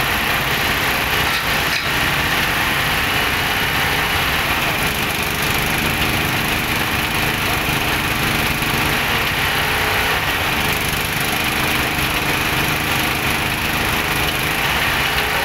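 Small stationary engine that powers a traditional oil-well drilling rig, running steadily.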